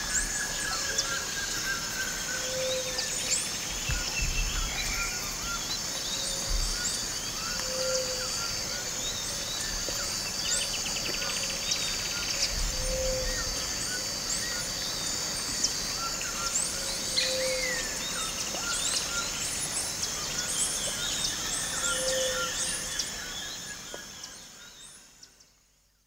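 Peruvian Amazon rainforest ambience: a steady high insect drone with many birds chirping and calling over it, and a low hoot repeating about every two to three seconds. It fades out near the end.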